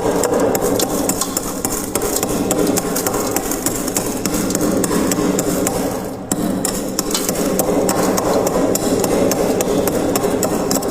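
Freezer frost being crunched close to the microphone: a dense, continuous run of crisp crunches, with a brief let-up about six seconds in.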